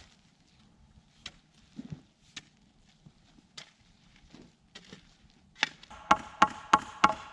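Hammer blows striking metal, about three a second, each with a short ringing tone, starting about two-thirds of the way in. Before that there are only scattered light knocks and clicks.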